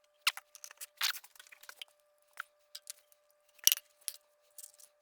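A string of light clicks and crinkles, short sharp handling sounds of an oil container and its cap as oil is added to the small engine, the loudest about three and a half seconds in.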